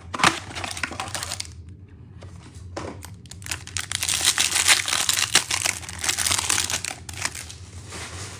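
A cardboard trading-card hanger box torn open by hand and the plastic wrapper of the card pack inside crinkling and tearing, in irregular crackling bursts with two short pauses and the busiest crinkling in the second half.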